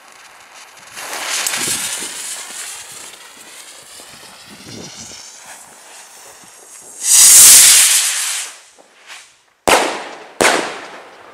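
Firework rocket launching with a whooshing hiss that fades as it climbs. A few seconds later comes a loud hissing burst, then two sharp bangs less than a second apart as it breaks.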